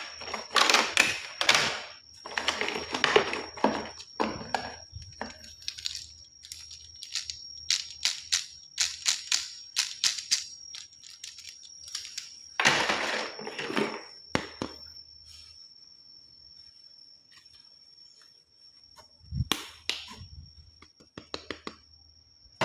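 Plastic toy guns and their packaging being handled: crinkling and scraping bursts, a run of sharp plastic clicks, and a low thump near the end, over a faint steady high whine.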